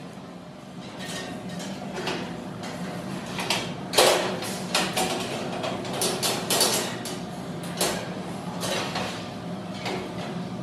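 Sheet-metal supermarket shelves being handled and hooked onto the slotted steel uprights of a rack: scattered metal clanks, knocks and scrapes, the loudest about four seconds in.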